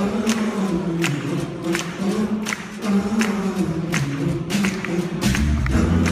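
Several singers performing live a cappella in close harmony, with a sharp click keeping time about one and a half times a second. A deep sustained bass note comes in near the end.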